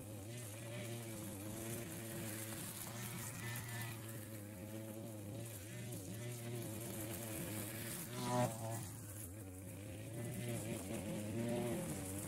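Engine of a wheeled push-type string trimmer running steadily while cutting grass, heard faint and buzzing from a distance, its pitch wavering slightly. It rises briefly once about eight seconds in.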